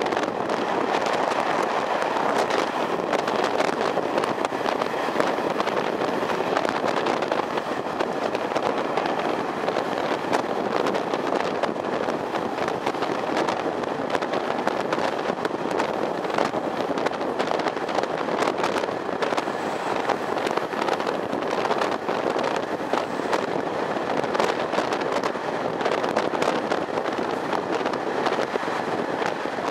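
A train running, heard as a steady rush of wheel and wind noise sprinkled with many small clicks and crackles.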